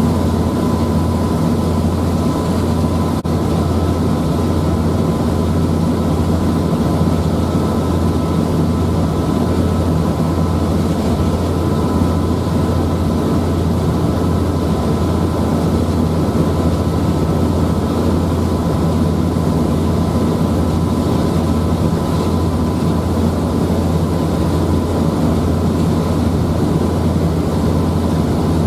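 Passenger ferry's engines running steadily at cruising speed: a loud, even low drone with a faint steady high whine above it.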